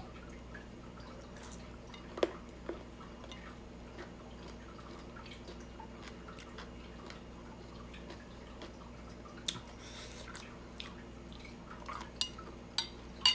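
Someone eating a cucumber and mango salad: quiet chewing and wet mouth sounds, with sharp clicks of a metal spoon against a ceramic bowl. The loudest click comes about two seconds in, and several come close together near the end, over a steady low hum.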